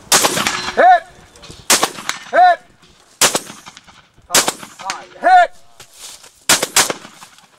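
Shotgun firing slugs at distant targets, about six sharp shots spread over several seconds. Three of the shots are followed by a short, loud sound that rises and falls in pitch.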